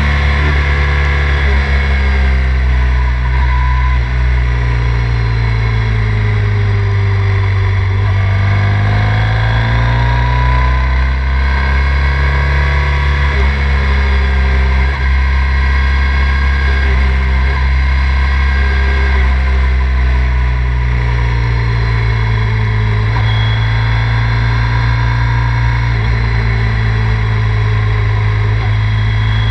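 Triumph Thruxton 900's air-cooled parallel-twin engine running steadily on the road, its pitch falling and climbing again a few times as the throttle is eased and reopened, with wind rush.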